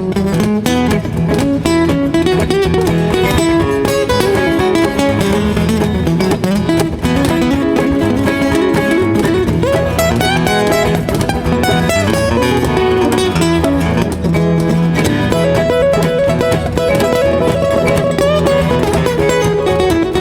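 Acoustic guitars playing an instrumental break in a bluegrass-style song: a lead guitar picks the melody over strummed rhythm guitars, with a cajon keeping the beat.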